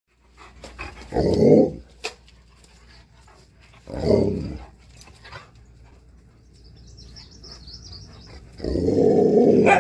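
Alaskan malamute and Siberian husky growling in play while wrestling, in three loud bursts: one about a second in, one around four seconds in, and a longer one near the end.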